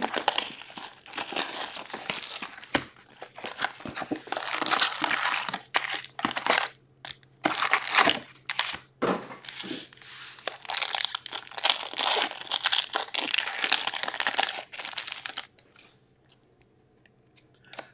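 Plastic-foil wrapping crinkling and tearing in irregular bursts as a box of trading cards is unwrapped and a card pack is ripped open by hand. The rustling stops a couple of seconds before the end.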